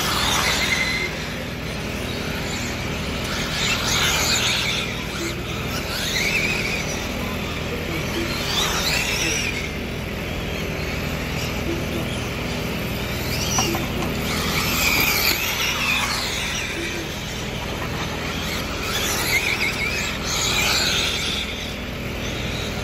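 1/7-scale Arrma electric RC on-road cars racing: the high whine of their brushless motors and drivetrains swells and falls away again and again as they pass by.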